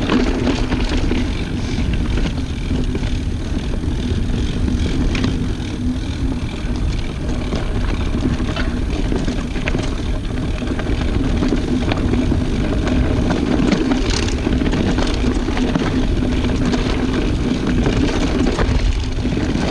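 Wind rushing over the microphone and knobby tyres rolling over dirt and dry leaves as a mountain bike descends singletrack, with a steady low hum and scattered clicks and rattles from the bike.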